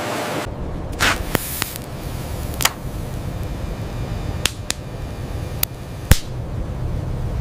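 A low rumble that sets in about half a second in, with about eight sharp clicks scattered through it, the loudest near the end.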